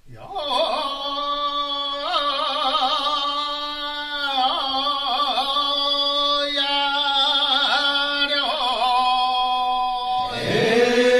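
A solo voice chanting long held notes with wavering ornaments. Near the end it scoops up into a new, louder phrase.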